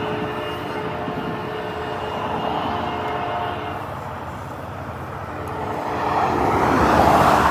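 Train rolling past and away, a steady rumble and hiss with faint steady tones, swelling louder from about six seconds in.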